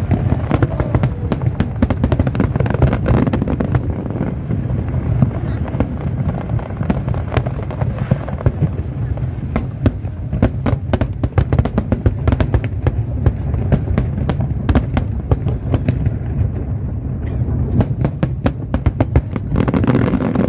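Aerial fireworks display: a dense run of sharp bangs and crackles over a continuous low booming rumble.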